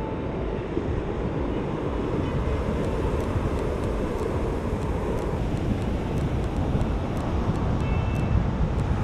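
Wind blowing across the microphone in a steady low rumble, with surf behind it.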